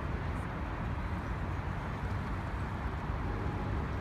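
Outdoor city background noise: a steady low rumble with an even hiss above it, with no single sound standing out.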